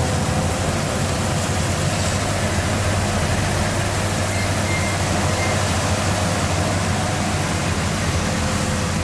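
Rice combine harvester running steadily: a continuous loud machine drone with a low engine hum and an even rushing noise.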